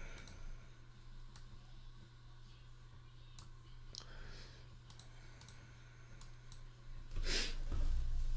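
Faint, scattered light clicks over a steady low hum, then a louder brief rustle of handling noise about seven seconds in.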